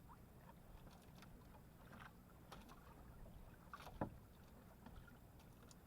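Near silence: a faint low rumble with scattered faint ticks, and one brief sharper click about four seconds in.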